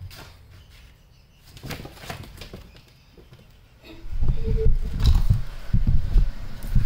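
A kitten clambering over cardboard boxes and jumping down to the floor, heard as a run of loud, low thumps and rustling that starts about four seconds in. The phone camera being moved adds handling bumps.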